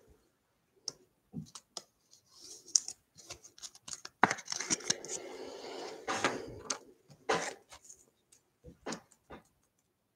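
Baseball trading cards being handled and shuffled through: scattered light clicks and taps of card edges, with a longer papery sliding scrape from about four to seven seconds in.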